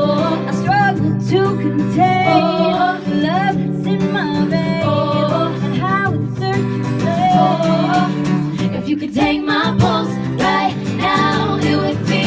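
Women's voices singing a pop song live over acoustic guitar accompaniment.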